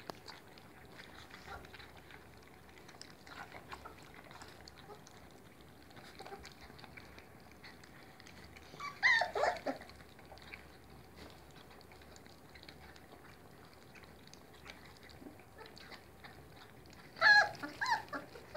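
Three-week-old kelpie puppies lapping and smacking at soft food in their dishes, a steady bed of small wet clicks. Twice, about nine seconds in and again near the end, a puppy gives a few short, high whining yelps.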